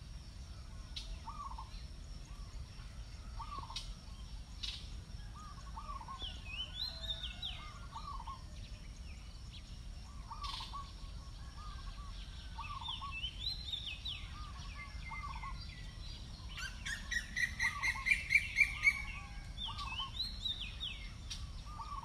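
Birds calling: short chirps repeating about once a second and higher stepped whistled phrases, with a quick run of about eight loud calls rising in pitch about three quarters of the way through.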